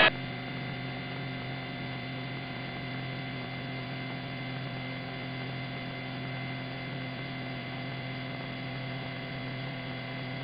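Steady electrical hum with several constant tones and a faint hiss: the background of the helicopter's recorded radio audio between transmissions.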